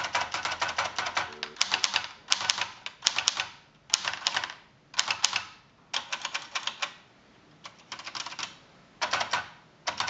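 Hermes Baby portable manual typewriter being typed on: rapid runs of keystrokes, the typebars clacking against the platen in bursts of about a second with short pauses between them.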